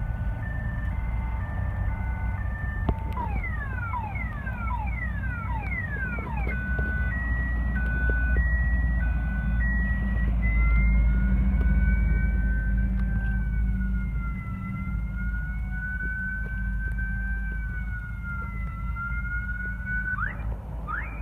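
Electronic siren cycling through its tones: stepped beeps, then rapid falling sweeps from about three seconds in, a two-note high-low alternation, and from about ten seconds a slow, wavering two-tone wail, with fast sweeps returning near the end. A steady low rumble runs underneath.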